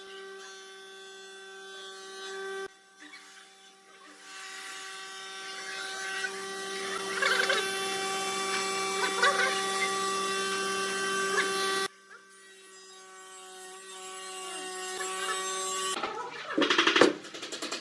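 A small electric power tool's motor whining at a steady pitch in three runs, each cutting off suddenly; the middle run builds louder. A few sharp knocks come near the end.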